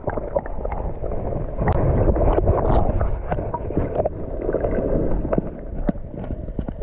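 River water heard through a camera held underwater: a loud, muffled low rushing and gurgling of the current, with many small clicks scattered through it.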